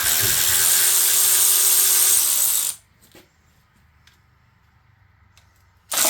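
Power ratchet spinning out engine bolts in two runs: one lasting nearly three seconds, then another starting near the end.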